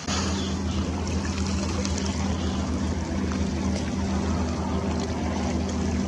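A steady low motor drone with a constant pitch over a hiss of moving water.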